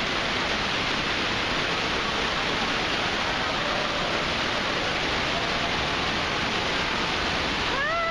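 Steady rush of falling and splashing water in an indoor water park, even and unbroken throughout. A short high-pitched voice calls out, rising then falling, just before the end.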